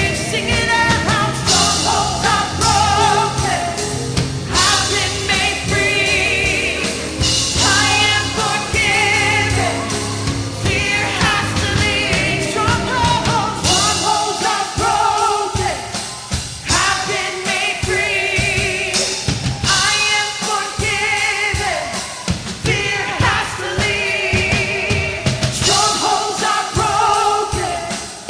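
Live worship band with singers: voices singing sustained phrases over drums and a full band, the deep bass dropping back about halfway through.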